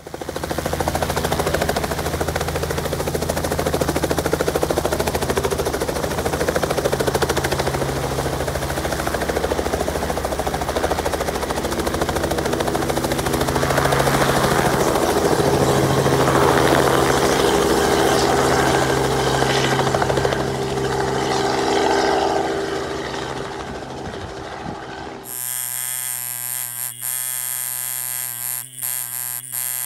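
Helicopter engine and rotor running steadily, a dense mechanical din over a low drone. About 25 seconds in it cuts sharply to an electric tattoo machine buzzing at a steady pitch, with a few brief dropouts.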